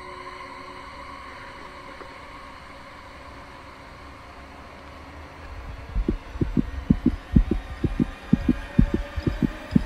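A steady humming drone with a held tone, then, about six seconds in, a loud, fast heartbeat sound effect begins: low double thumps repeating quickly over a deep rumble, a suspense cue.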